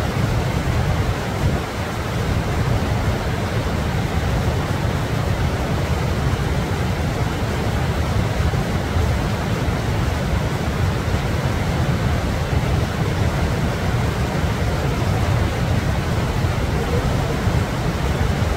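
Wind buffeting the microphone: a steady rushing noise with a strong, fluttering low rumble.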